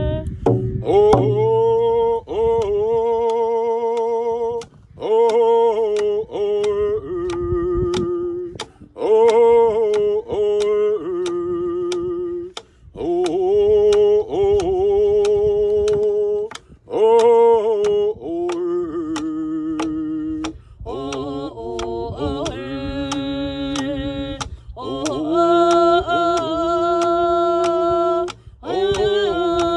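Voices singing a slow song in long held phrases, accompanied by a steady, even beat on hand drums struck with a beater.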